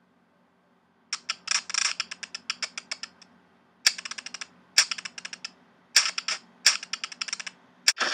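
Computer-keyboard typing clicks in three quick bursts of a second or two each, starting about a second in after a brief silence, with a single click near the end.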